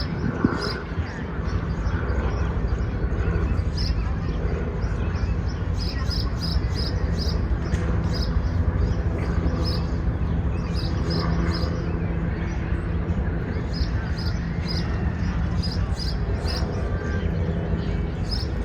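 City park ambience: a steady low traffic rumble with a faint hum, distant voices, and short high bird chirps repeating irregularly.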